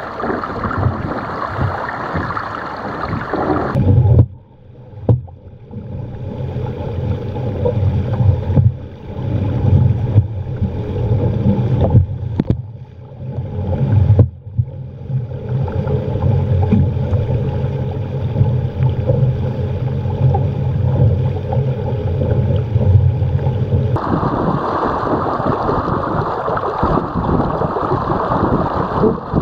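Wind buffeting a deck-mounted action camera's microphone over the rush and splash of water along the hull of a Musto Skiff sailing dinghy moving at speed. The rushing noise is steady but changes character abruptly about four seconds in and again about five seconds before the end, with brief dips in between.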